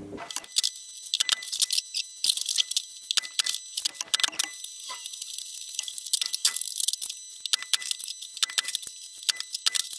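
Small pieces of oak batten clicking and clacking as they are handled and set down on a wooden workbench: many sharp, irregular, high-pitched clicks, several a second.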